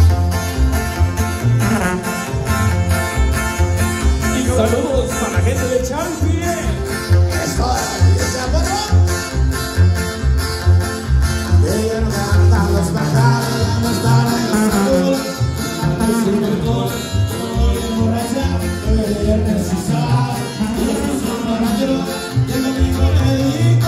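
Live band music played loud over a sound system, with a strong, steady bass beat under the melody.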